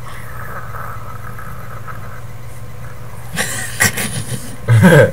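Steady low hum from the computer recording through its built-in microphone. Past the middle come a few sharp knocks and clatters, and a short loud laugh near the end.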